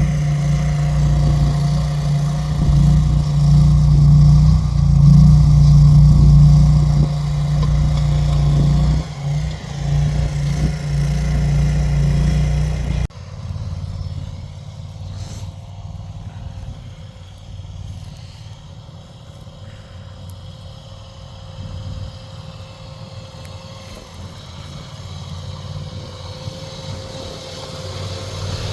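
Cartiwell CW-460 mini skid steer's engine running steadily while its trencher attachment digs. About halfway the sound drops suddenly to a quieter, more distant engine note, which grows louder again near the end.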